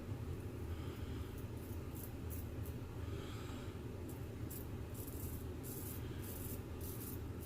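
Straight razor scraping through lathered facial stubble in about a dozen short strokes, in two runs with a pause around the middle, over a steady low hum.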